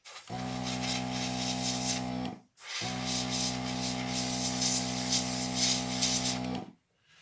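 Airbrush spraying paint in long bursts, a hiss of air with the steady hum of its small compressor motor under it. Each burst starts and stops sharply: one short burst, then a longer one about half a second later that cuts off near the end.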